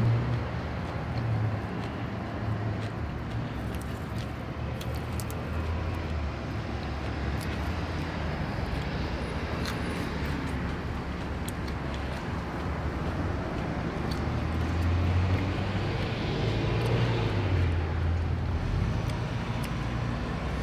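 Steady low rumble with a soft hiss, like a motor vehicle or aircraft, growing louder about fifteen seconds in and easing off near the end, with a few faint clicks.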